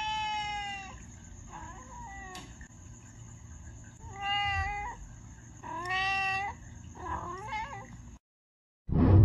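A cat meowing five times: one long drawn-out meow, a short one, then three more about a second apart, the last one wavering. The sound cuts off about eight seconds in, and a short loud thump follows near the end.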